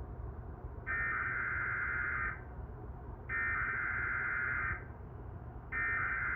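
Emergency Alert System SAME header: three identical bursts of warbling digital data tones, each about a second and a half long with about a second between them, encoding a Child Abduction Emergency (Amber Alert) sent through the cable TV system.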